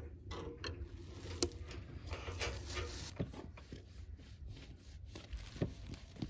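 Scattered small knocks, taps and rubbing of objects being handled, irregular and unhurried, with a louder knock about a second and a half in.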